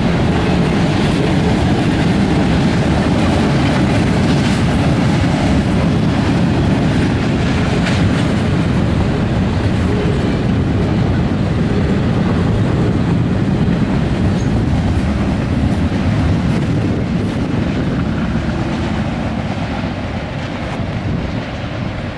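Norfolk Southern intermodal freight train rolling past: the steady rumble of trailer-flatcars and double-stack well cars on the rails, fading over the last few seconds as the train moves away.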